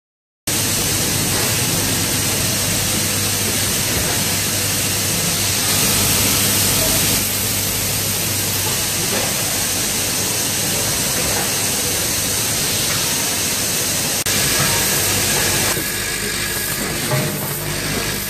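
Machinery noise of a coffee-bean packing line running: a steady low hum under a loud, dense hiss. It starts suddenly about half a second in and shifts abruptly several times.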